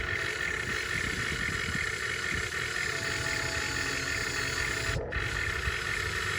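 RC excavator's electric hydraulic pump running with a steady whine over a low rumble, briefly cutting out about five seconds in.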